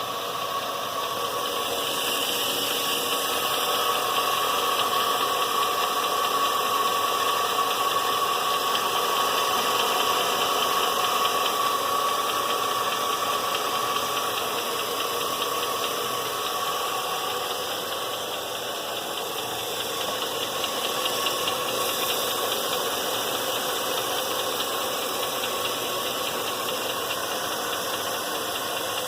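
2000 Chevrolet Silverado's 5.3-litre LM7 V8 running steadily with a rapid ticking from the valvetrain. The owner suspects a failing lifter, since new trunnion bearings on the rocker arms did not cure the tick.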